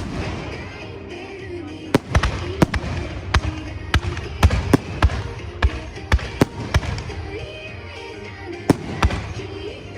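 Fireworks bursting in a quick series of sharp bangs, crowded from about two seconds in and tailing off to two more near the end, over pop music playing along with the show.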